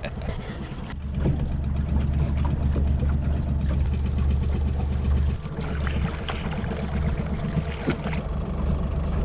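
Outboard motor running steadily at low speed, a low drone that gets louder about a second in and dips briefly about halfway through, with water washing along the hull.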